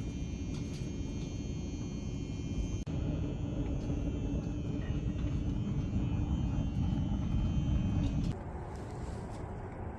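Steady low rumbling background noise with faint steady high tones above it. It changes abruptly, growing louder about three seconds in and dropping back sharply a little after eight seconds.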